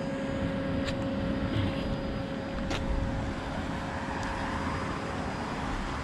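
Steady distant engine drone, swelling a little a few seconds in, with two light clicks.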